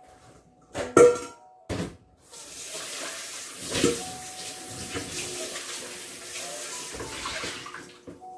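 Two clanks of cookware in the kitchen sink about a second in, then the tap runs into the sink over a frying pan for about six seconds before it is shut off near the end.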